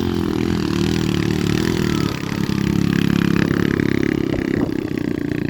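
Honda Win motorcycle engine pulling hard up a steep climb with a rider and passenger aboard, running at steady high revs with its pitch wavering slightly.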